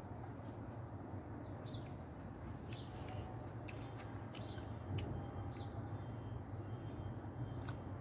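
Small birds chirping, short high chirps coming irregularly, several close together at times, over a steady low hum.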